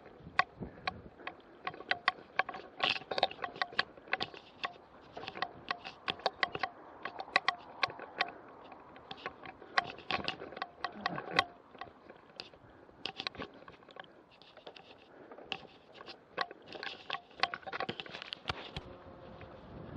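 Mountain bike rattling over a bumpy singletrack: rapid, irregular clicks and clatter from the bike's chain and frame, easing off briefly in the middle.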